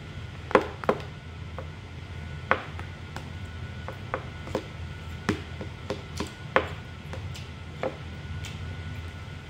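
Metal spoon and fork clinking and scraping against a plastic food container while scooping up fried rice: about a dozen irregular sharp clicks, the loudest about half a second in.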